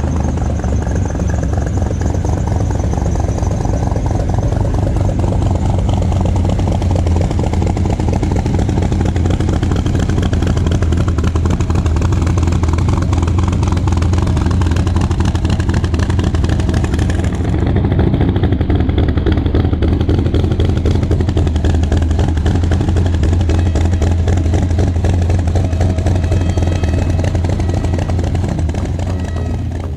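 A motor vehicle's engine running steadily for the whole stretch, a strong low hum that holds the same pitch and level throughout.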